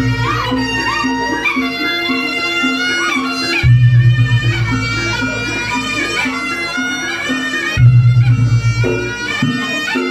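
Reog Ponorogo gamelan music: a reedy shawm-like wind instrument plays a wavering, held melody over a steady repeating beat. Deep low strokes sound twice, each ringing on for about two seconds.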